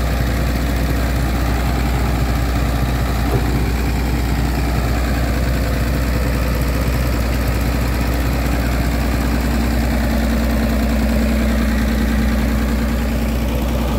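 An engine running steadily at idle, with water bubbling hard in prawn holding tanks under heavy aeration.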